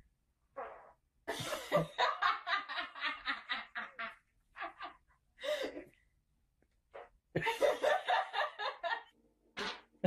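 A person laughing in two long bouts of quick, evenly repeated pulses, with a few short separate sounds between the bouts.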